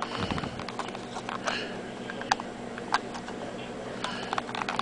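Plastic casing of a Samsung S730 compact camera being pulled apart by hand: scattered small clicks and creaks as the clips give, with a low bump just after the start.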